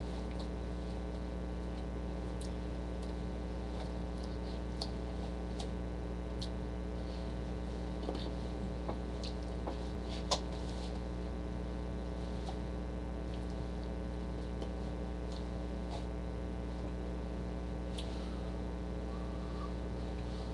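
Steady electrical mains hum with a stack of buzzing overtones, with a few faint, short clicks scattered through it; the sharpest click comes about ten seconds in.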